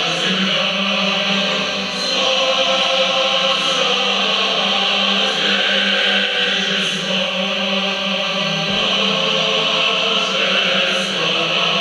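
A choir singing slowly with musical accompaniment, played through a television.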